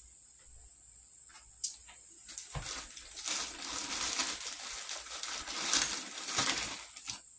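A plastic Ziploc bag being handled, with a click about a second and a half in, then irregular rustling and crinkling with several louder crackles.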